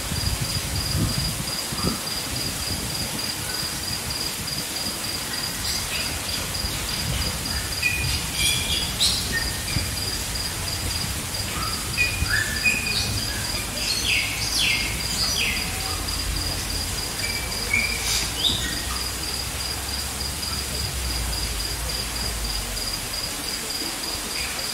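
A steady, rapidly pulsing insect trill runs throughout. Short bird chirps and calls come in bouts through the middle, over a low rumble.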